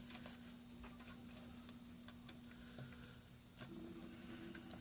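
Faint, scattered light clicks and taps as the laptop's Wi-Fi antenna leads are handled and pressed onto the wireless card, over a steady low electrical hum.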